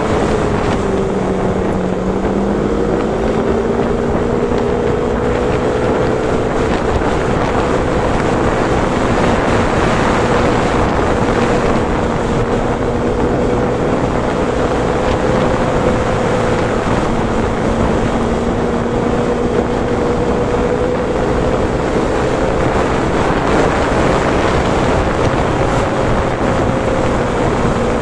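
Engine of a road vehicle under way, holding a fairly steady note that drops and picks up again in the first few seconds, under loud wind noise rushing over the microphone.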